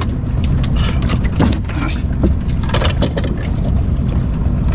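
Steady low rumble aboard a small fishing boat, with scattered knocks, clatter and splashes as a longline is hauled in by hand.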